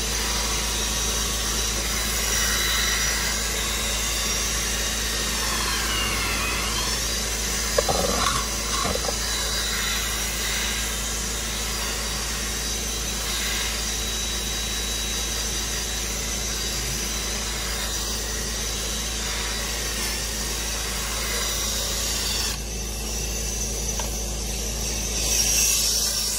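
Craftsman cordless drill spinning a scrub brush against cloth car-seat upholstery, a steady whir with brushing. It stops about 22 seconds in, and near the end an upholstery extractor wand hisses as it sprays.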